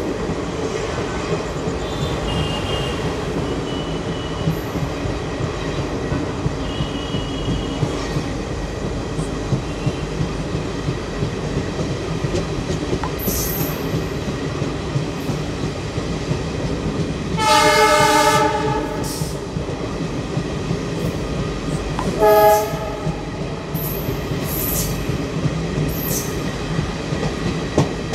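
An Indian Railways express with ICF coaches running steadily along the track, hauled by twin ALCO WDM3A diesel locomotives. The locomotive horn sounds one long blast about two-thirds of the way through, then a short blast a few seconds later. Faint wheel squeal comes early on.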